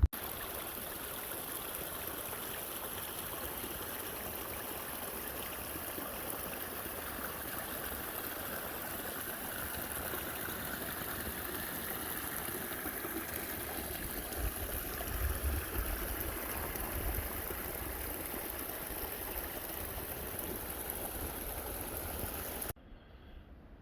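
Steady rushing of wind through the trees on the ridge, swelling a little past the middle.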